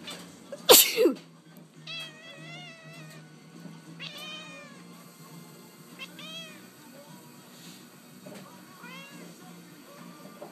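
A person sneezes loudly about a second in. A cat answers with a string of short meows and trilling chirps, about six calls spread over the following seconds: its habitual response to a sneeze.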